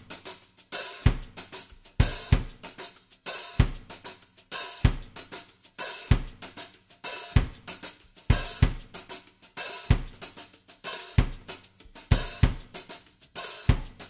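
Background music with a steady drum-kit beat: a kick drum about every second and a quarter under busy cymbals and hi-hat.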